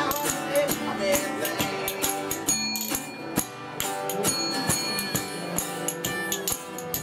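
Acoustic folk-blues trio playing: two acoustic guitars strummed and picked, with spoons clacking out a quick rhythm and a harmonica on a neck rack sounding short held notes in the middle.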